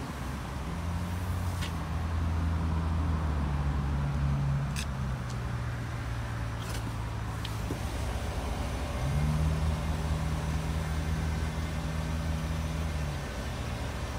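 A GMC Sierra 1500 Denali's V8 engine idling, heard at the tailpipe and from under the truck as a steady low drone. Its note rises twice for a few seconds, about a second in and again past the middle, then settles back.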